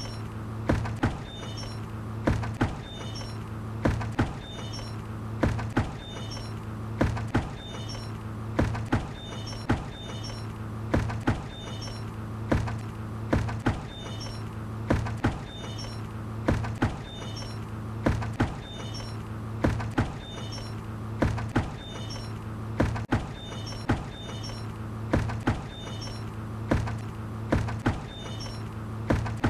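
A bucket knocking, a short knock or a quick pair of knocks about every two seconds in an even repeating pattern, over a steady low hum.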